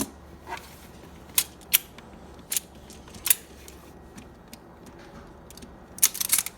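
Plastic magnetic toy blocks clicking together as they are snapped on and pulled off: a handful of separate sharp clicks, then a quick run of clicks near the end.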